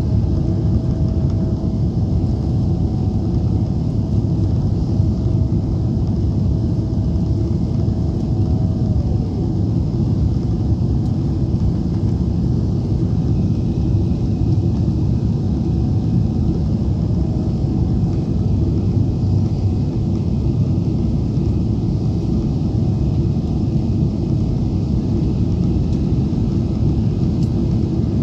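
Jet airliner cabin noise during the climb after takeoff: the steady, deep drone of the engines and airflow heard from a window seat, with a faint hum that drops in pitch about nine seconds in.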